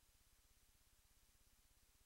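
Near silence: a faint, steady low hum with a little hiss.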